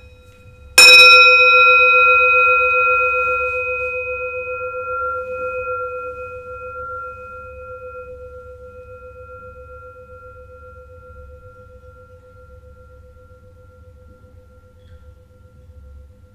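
A metal meditation chime struck once, just under a second in, ringing on in a clear, slightly wavering tone that fades slowly over about ten seconds and is still faintly sounding near the end.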